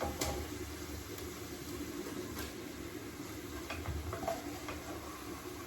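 Food frying in a pan on a gas burner: a low, steady sizzle with a few light clicks of a utensil against the pan.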